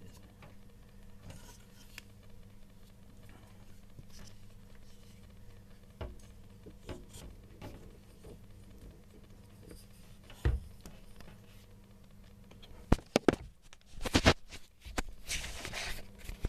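Hands handling the dryer motor and parts inside the tumble dryer cabinet: faint taps and scrapes, a knock about ten seconds in, then a quick run of sharp knocks, the loudest sounds, followed by a few seconds of rubbing.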